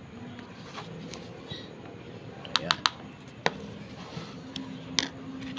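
Sharp clicks and taps of containers and utensils being handled while bird hand-feeding formula is set out: a quick group of three about halfway through, then two more single clicks, over a faint steady low hum.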